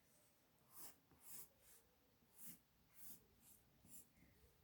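Faint pencil strokes scratching on paper: a series of short, quick strokes, roughly one every half second to a second.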